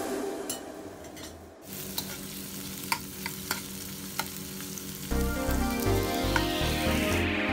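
Onions, garlic and green chillies sizzling in hot oil in a frying pan as a metal spoon stirs them, with a few sharp clicks of the spoon against the pan. Background music comes back in about five seconds in.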